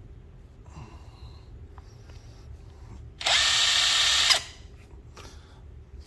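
Cordless 20V impact driver (Altocraft CIS331) run briefly on its trigger: about three seconds in, a loud motor whir starts abruptly, holds steady for just over a second, and stops abruptly. Before it there are faint handling sounds of the tool being turned over.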